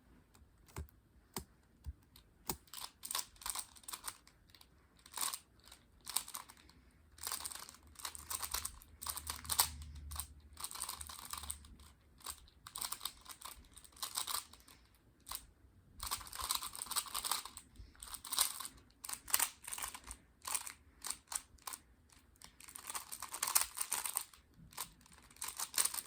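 3x3 Rubik's cube being turned fast by hand in a timed speed solve: quick flurries of plastic layer turns clicking and clacking, with short pauses between the runs of moves.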